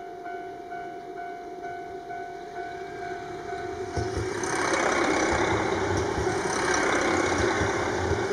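A diesel multiple-unit train passes close by in blowing snow: about four seconds in, the rumble of its engines and wheels rises sharply and stays loud as the cars go past, with low regular wheel thumps. Before that, a repeating electronic beeping tone, about two a second, cuts off.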